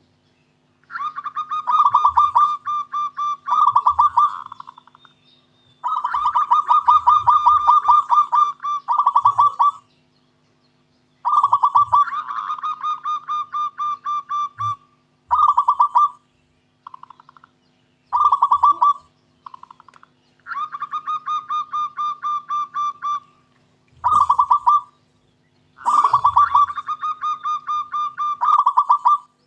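Zebra dove (perkutut lokal) singing its cooing song: a series of about eight fast, pulsing coo phrases, some several seconds long and some short, separated by brief pauses.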